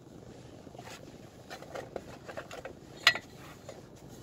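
Gloved hands handling a watch's packaging: the boxes and a paper card rustling and knocking in a run of small clicks, with one sharp click about three seconds in.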